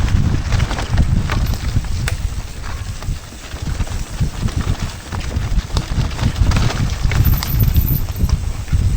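Heavy rumbling wind noise on the microphone while moving, with scattered irregular knocks and rattles, like riding over rough ground.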